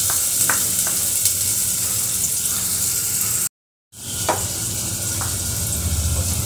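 Chopped onions sizzling as they fry in hot oil and ghee in a steel pot, with a few light taps of a wooden spatula. The sound drops out for a moment about three and a half seconds in, then the sizzling carries on.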